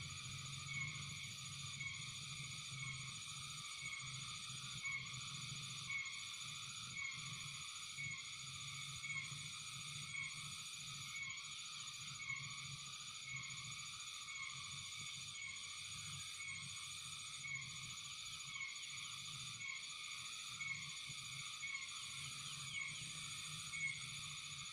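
Frogs and insects calling steadily by a creek, one frog's call repeating about once a second over a constant high insect trill.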